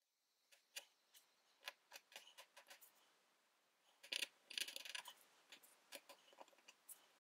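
Steel etching needle scratching lines into an acrylic drypoint plate: a run of short, sharp scratches, with a denser, louder flurry of quick strokes about four seconds in.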